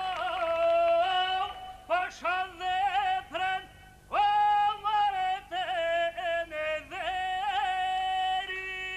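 A man sings a traditional Albanian folk song unaccompanied, in a high, heavily ornamented voice. Short phrases with brief pauses come in the first four seconds, followed by a long ornamented line that ends on a held note.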